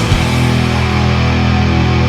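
Heavy rock music: a last hit at the very start, then a chord held and ringing steadily with no drums or singing.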